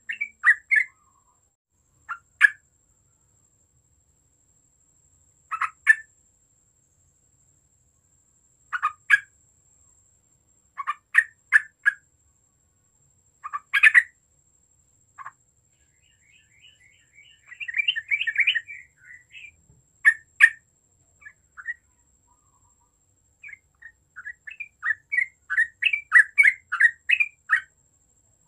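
Yellow-vented bulbul singing in short phrases of quick chirps every few seconds, with a longer warbled phrase about two-thirds in and a dense run of rapid notes near the end.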